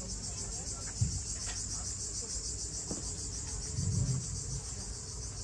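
A steady, high-pitched chorus of insects chirring outdoors. A low thump comes about a second in.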